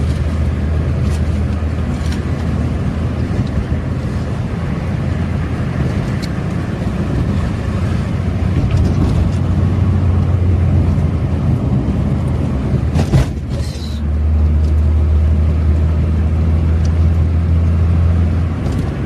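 Suzuki Karimun Kotak on the move, heard from inside the car: a steady low engine drone over road and tyre noise. About two-thirds of the way through there is a short knock, the drone dips for a moment, then it comes back stronger.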